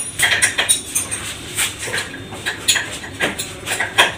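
Irregular metallic clinks and clicks of a tool working on an air bike's pedal fitting, loosening it so it can be oiled to cure a squeak.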